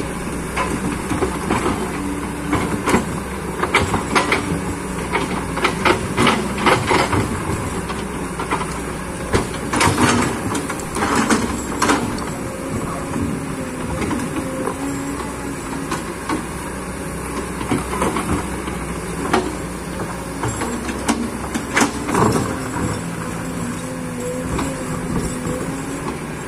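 Hydraulic excavator engine running steadily under load while the machine works, with repeated clanks and scraping knocks of the bucket against rocks and soil.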